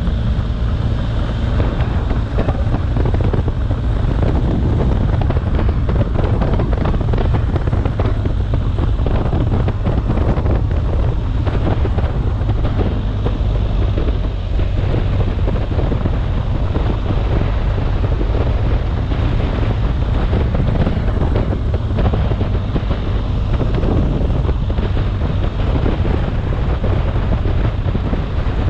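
Wind buffeting the microphone of a camera on a moving BMW R 1250 GS adventure motorcycle, a heavy low rumble, over the bike's boxer-twin engine running and its tyres rolling on a gravel track. The noise stays steady throughout.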